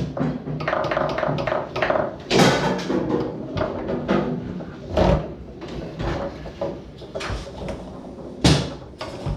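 Foosball rally on a Tornado table: the ball is struck by the men and rods, with irregular sharp knocks and clacks and a few harder shots about two and a half, five and eight and a half seconds in.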